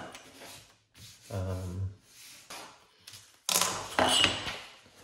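A printed paper booklet and a ruler being handled on a cutting mat: soft rubbing at first, then a louder rustling scrape of paper about three and a half seconds in. A short murmur of voice comes about a second and a half in.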